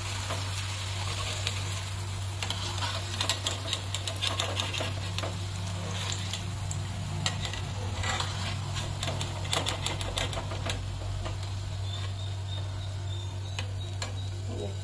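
Okra deep-frying in hot oil in a kadhai, sizzling, with many light clicks and taps as the fried pieces are lifted out, over a steady low hum.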